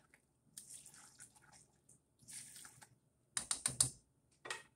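Macaroni and cheese being stirred in a metal saucepan with a spatula, making soft wet squelching strokes. About three and a half seconds in there is a quick run of sharp clicks as the spatula knocks against the pot, and one more knock near the end.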